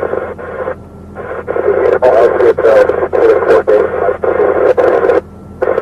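Police two-way radio traffic: a voice over the radio speaker, thin and narrow-sounding, in three transmissions that cut in and out sharply, the middle one about four seconds long.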